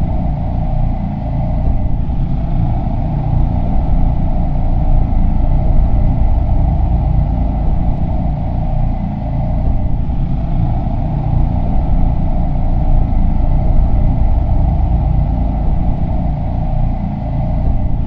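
A steady, loud low rumble with faint high tones held over it, cutting off suddenly at the end.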